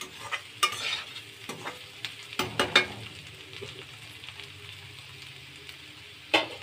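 Diced carrot and potato sizzling in hot ghee in a steel kadai, with a spatula scraping and knocking against the metal pan several times in the first three seconds as it stirs. After that the sizzle carries on alone until one sharp knock near the end.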